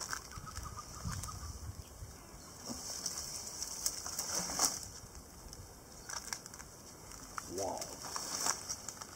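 Dry twigs and leaf litter crackling and snapping in scattered light clicks as a dead branch is picked up from the ground and handled. Near the end a voice gives a short rising "mm".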